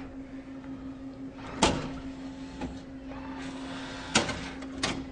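Three sharp knocks over a steady low hum: one about a second and a half in, then two close together a little after four seconds.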